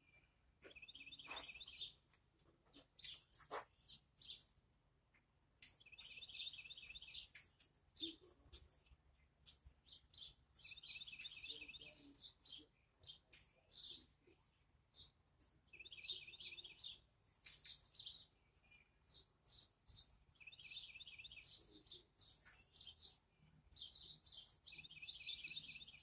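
Faint songbirds: one bird repeats a short, fast trill about every five seconds, while other birds give brief sharp chirps in between.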